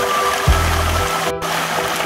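Background music with a heavy bass beat, over the rushing of a shallow rocky river.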